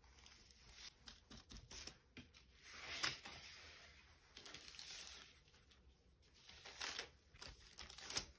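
Parchment baking paper rustling and crinkling on a metal baking tray as hands stretch pide dough across it, in irregular soft bursts with a light tap near the end.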